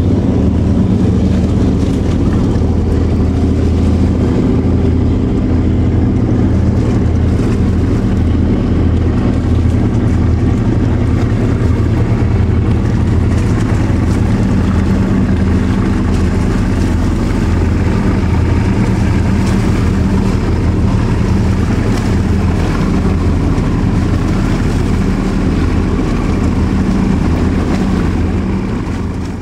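High-speed passenger ferry's engines running at speed, a loud steady low drone with a rush of noise over it. It fades out near the end.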